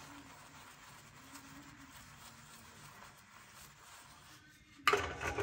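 Quiet at first, then near the end a sudden burst of water splashing into a stainless steel sink, about a second long, as a metal gas-hob burner cap is rinsed under the tap.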